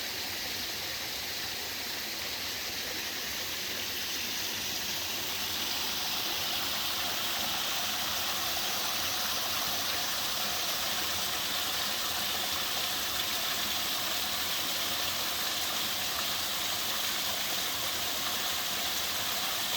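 Mountain-stream waterfall: water rushing and splashing steadily over rocks, growing a little louder about five seconds in.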